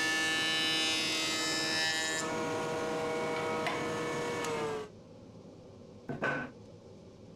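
Benchtop jointer running with a high motor whine while its cutterhead shaves a pine board for about the first two seconds, then spinning free. About five seconds in the whine stops abruptly, and a brief wooden knock follows.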